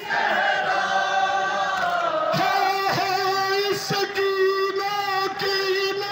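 Group of men chanting a nouha, a Shia lament for Imam Hussain, in unison, holding long drawn-out notes. Sharp slaps cut in several times from about the middle on, the chest-beating (matam) that keeps time with the lament.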